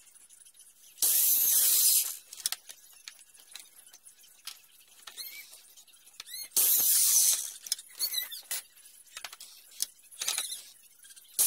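Compound mitre saw cutting pine: three or four short loud bursts of blade cutting through wood, with whining rises and falls in pitch between the cuts.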